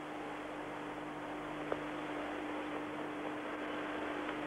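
Steady hiss with a low mains hum from an old home videotape recording of a television broadcast, with a faint click about 1.7 s in.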